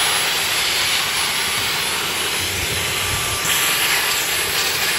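Dyson V15 Detect cordless stick vacuum running with its crevice tool, sucking along the edge of a carpet: a loud, steady rushing hiss of motor and airflow with a faint high whine.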